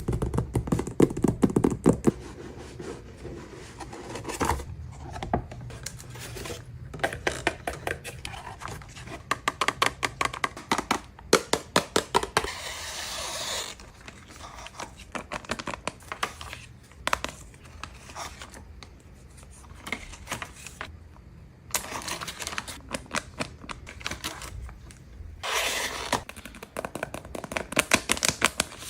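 Paper being handled by hand: irregular rustling and crinkling with many short, sharp clicks, and longer rasping stretches about twelve seconds in and again near the end.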